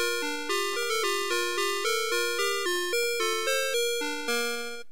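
Navystar Press N Go toy fire truck's electronic sound chip playing a tinny tune: a quick melody of bright beeping notes, about four a second, each struck and fading, that stops abruptly at the end.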